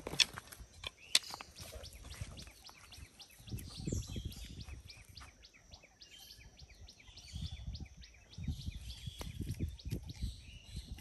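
A few sharp clacks of bamboo sticks knocking together in the first second or so, then low scuffing and rustling as the sticks are handled at the muddy bank. Birds chirp in the background, including a rapid run of high chirps through the middle.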